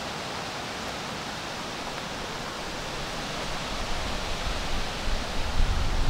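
Steady rushing outdoor noise, joined from about four seconds in by a low, gusty wind rumble on the microphone that grows louder toward the end.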